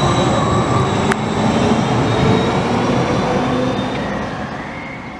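Tram running past at close range: a steady rumble of wheels on the rails with a faint high whine, and one sharp click about a second in. The sound fades out near the end.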